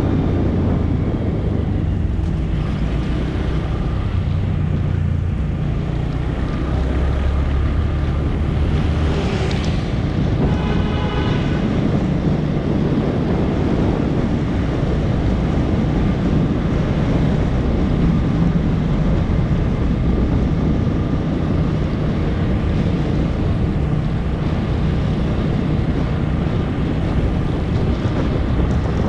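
Honda MSX 125's small single-cylinder four-stroke engine running under way, its low note rising and falling with throttle and gear changes, under steady wind rush on the microphone. A brief high pitched tone, like a horn, sounds about ten seconds in.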